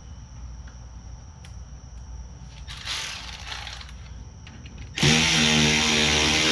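A few faint metal clicks and a brief scrape, then a loud motor-driven power tool starts suddenly about five seconds in and runs steadily.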